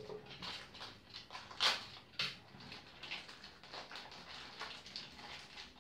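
Hand tools and their clear plastic packaging bags being handled: irregular crinkling and rustling with small clicks, and two sharper clicks about two seconds in.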